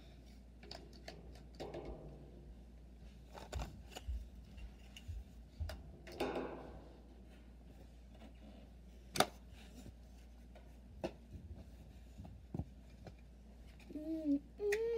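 Plastic toy building bricks handled and fitted together: scattered light clicks and knocks, one sharper click about nine seconds in. A short hummed phrase comes near the end.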